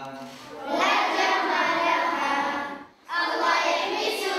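Group of girls singing a song together in sustained sung phrases, with a short break for breath about three seconds in.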